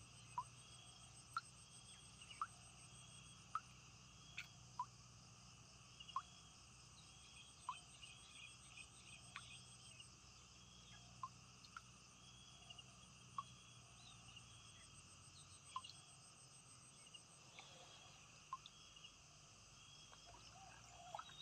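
Near silence: a faint outdoor chorus of insects such as crickets, with a chirp repeating about once a second and scattered small ticks.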